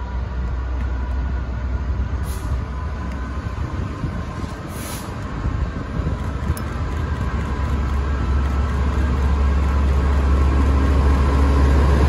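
GB Railfreight Class 66 diesel locomotive approaching on the line, its deep two-stroke engine drone growing steadily louder as it nears.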